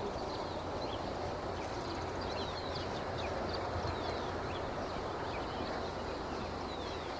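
Many small birds chirping, short quick falling chirps scattered throughout, over a steady low rumble of outdoor noise.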